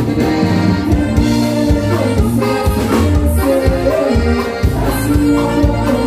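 Norteño dance music: accordion over a steady, rhythmic bass line.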